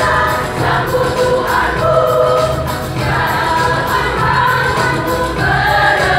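A choir singing together, holding long notes that change pitch every second or so.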